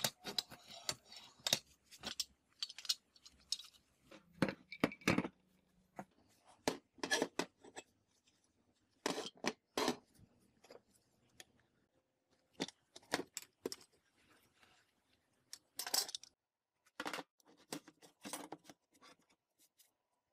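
Steel parts clinking and clanking as a bolted folding scissor bracket is folded flat and handled, then flat steel bars are set down on the worktop. The sound is a string of irregular, sharp metallic knocks and clinks with short gaps between them.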